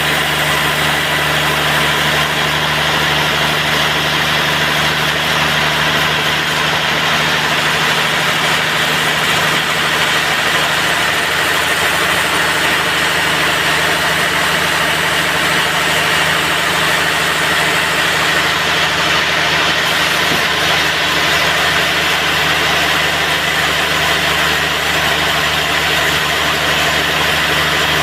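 Sawmill running at a steady speed and level, a machine drone with many fixed tones under a continuous hiss.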